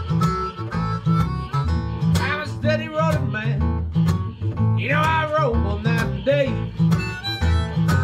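Country blues played live: a fingerpicked acoustic guitar over a steady low bass pulse, with a harmonica playing wavering, bending phrases in the middle.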